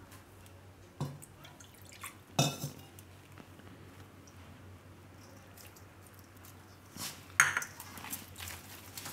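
A few clinks and knocks of a stainless-steel mixing bowl as it is handled on the counter with dough being mixed in it, in two short clusters: around a second or two in, and again near seven seconds.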